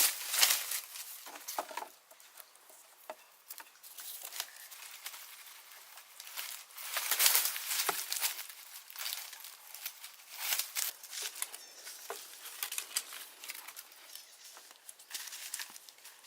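Irregular rustling and crinkling of dry plant material, with light clicks and snaps, louder in bursts about half a second in and again around seven and ten seconds in.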